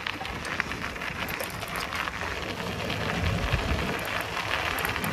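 Bicycle tyres rolling over a forest track, a steady crunching crackle of many small clicks, with wind rumbling on the microphone.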